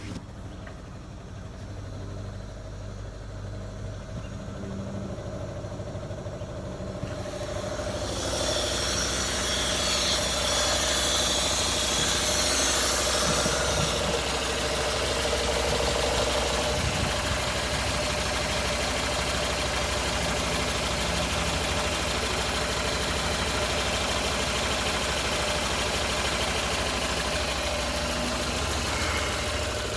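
Renault Sandero 1.6-litre engine running at idle, getting louder about eight seconds in and then running steadily. The engine has been misfiring and idling low; the shaking is less bad than before, but the owner judges from the exhaust sound that the power is still lacking.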